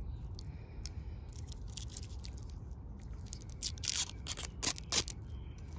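Clear protective plastic film crackling as it is picked at and peeled off a stainless steel watch bracelet, with irregular sharp crackles that bunch together after about three and a half seconds.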